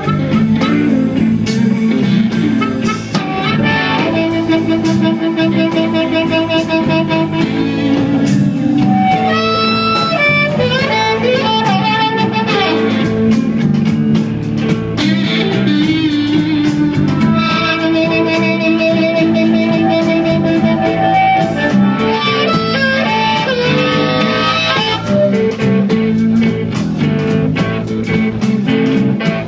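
Blues-rock band playing live, electric guitar, bass and drums under a harmonica solo played into the vocal microphone. The harmonica plays long held, wavering notes in two stretches, early and again midway.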